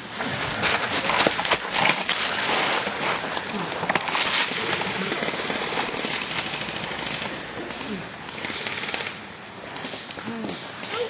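Airsoft guns firing in rapid automatic bursts, a dense rattling clatter that eases off after about eight seconds, mixed with crackling of dry leaves.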